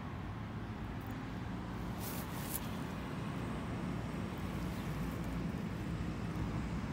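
Steady low hum of road traffic, with a brief scratchy noise about two seconds in.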